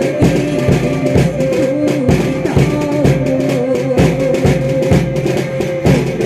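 Manipuri folk music accompanying the Longkhol Jagoi basket dance: a steady drum beat under a long held melody line.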